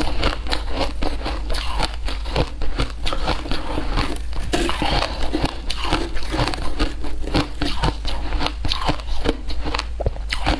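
Frozen shaved ice crunching as it is chewed and handled close to a clip-on microphone. It makes a dense, continuous run of crisp crackles and crunches.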